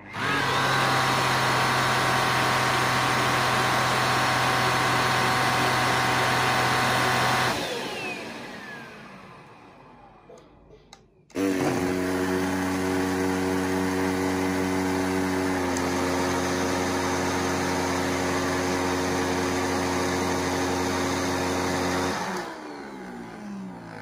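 Jimmy BX7 Pro UV bed vacuum cleaner switched on, running with a steady high whine for about seven seconds, then switched off and winding down. About eleven seconds in, the Deerma CM1900 UV bed vacuum cleaner is switched on and runs with a lower-pitched hum that shifts slightly partway through, then is switched off and winds down near the end.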